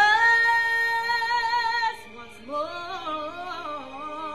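Music: a female singer holds one long high note for about two seconds, then a quieter, wavering melodic phrase follows.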